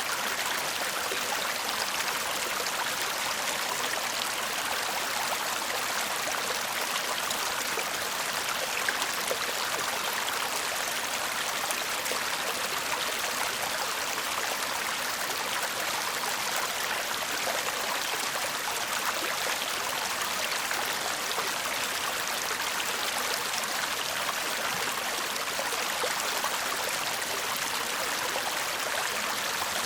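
Shallow stream babbling steadily over stones, an even rush of water with fine splashing and trickling throughout.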